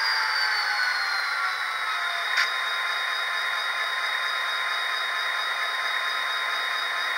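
Onboard sound decoder of an HO-scale Intermountain CN SD40-2W model locomotive playing EMD diesel engine sound through its small speaker. The whine falls in pitch over the first two seconds, then settles to a steady idle, with a single short click about two and a half seconds in.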